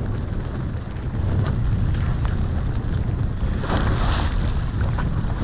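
Wind buffeting the microphone over choppy sea, with water washing and slapping against the boat's hull. A louder splash of spray comes about four seconds in.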